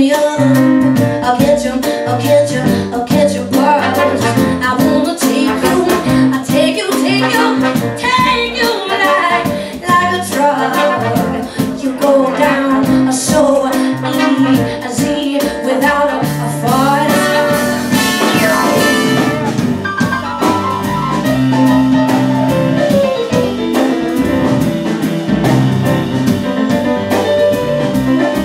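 Live jazz-blues band playing an instrumental break, led by piano runs on a keyboard over plucked upright bass and drums.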